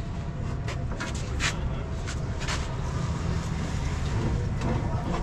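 Steady low rumble of a vehicle engine running nearby, with a few sharp metal clicks in the first half as a truck's brake drum is handled on the wheel hub.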